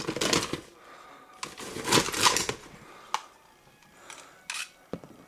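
Plastic shark-head grabber toy snapping its jaws and rummaging through popcorn in a paper box: two rustling, clattering bursts, then a few separate sharp plastic clicks.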